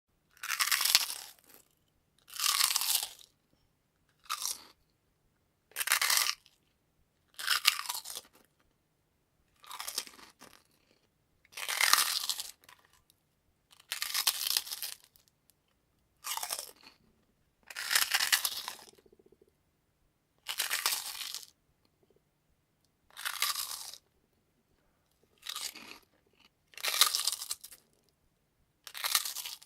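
Crunchy potato chips being eaten: about fifteen separate bursts of loud crunching, each lasting about a second, with short silent pauses between them.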